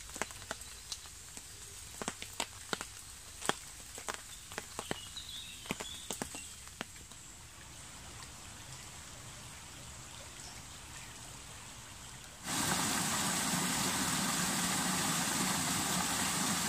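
Quiet wet woodland with scattered sharp drips and ticks and a brief bird chirp about five seconds in. Then, about three-quarters of the way through, the steady rush of a muddy, rain-fed woodland stream pouring past a log starts suddenly and loud.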